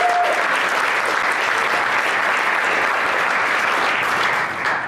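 Congregation applauding steadily, the clapping dying away at the very end.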